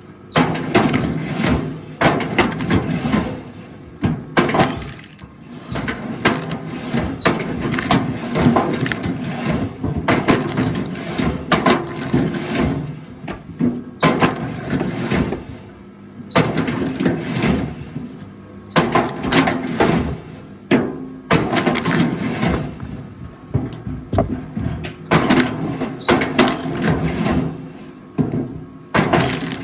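Firewood being split on a rail log splitter: irregular knocks and clatter of wood over a steady motor hum.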